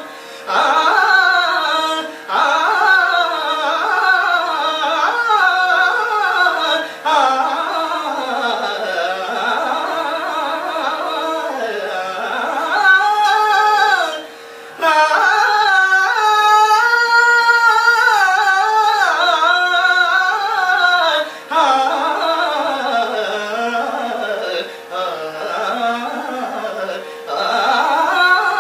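Male voice singing a Telugu padyam in the drawn-out classical style: long melismatic phrases that glide and waver up and down in pitch, over a steady drone note. Brief pauses for breath break the phrases.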